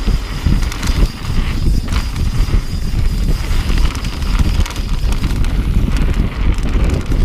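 Wind buffeting the microphone of a camera on a mountain bike riding fast down a dirt singletrack, over the rumble and rattle of the bike and tyres on the rough trail.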